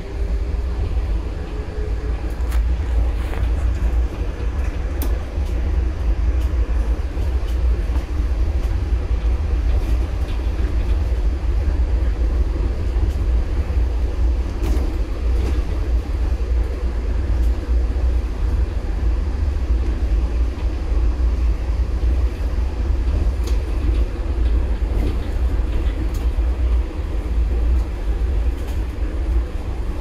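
Train running: a steady low rumble with faint, scattered clicks and rattles.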